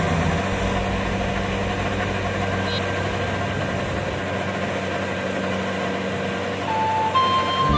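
Kubota DC-70 combine harvester's diesel engine running steadily under load as it cuts rice. Music comes in at the very end.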